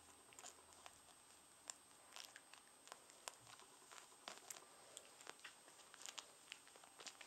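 Near silence broken by faint, irregular clicks and rustles as a puppy is handled and steps on a fleece blanket, with a faint steady high whine underneath.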